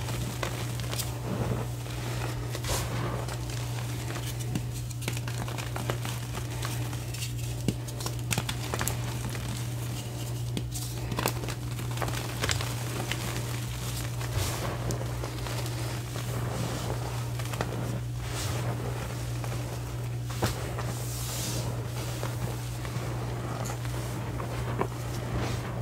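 Hands crushing and squeezing blocks of reformed gym chalk into loose powder, with dense crumbly crunching and crackling. Near the end the hands pat and press the soft powder. A steady low hum runs underneath.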